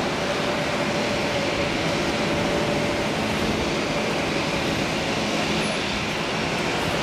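Airbus A380's four jet engines on final approach, a steady rumble with a faint steady whine that fades about three seconds in.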